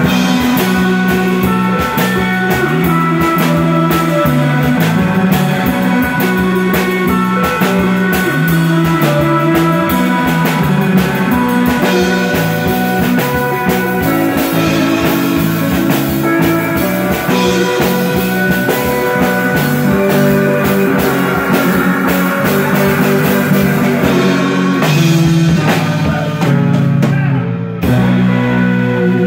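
A live band playing instrumental rock on electric guitar and drum kit, with a brief break near the end before the band comes back in.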